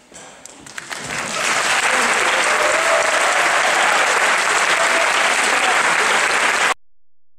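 Audience applauding: a few scattered claps that swell within about a second and a half into full steady applause, which cuts off suddenly near the end.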